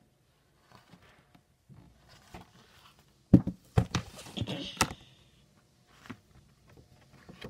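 Handling noise from a paperback picture book held against the recording device: several sharp knocks about three and a half to five seconds in, with a brief rustle of paper among them.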